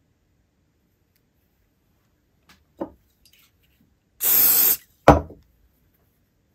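A half-second hiss of an aerosol superglue activator sprayed onto a freshly glued antenna casing to make the glue cure quickly, followed straight after by a sharp knock of the metal spray can set down on a wooden desk. A small tap comes about a second and a half earlier.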